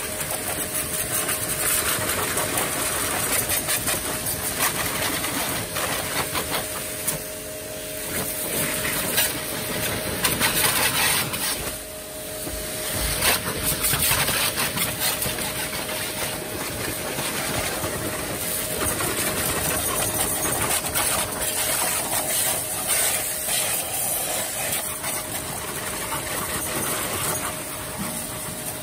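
Yamasu mini pressure washer running, its pump motor humming steadily under the hiss of the high-pressure water jet striking the motorcycle and the tiles. The spray noise swells and dips as the jet is moved, with a brief lull about twelve seconds in.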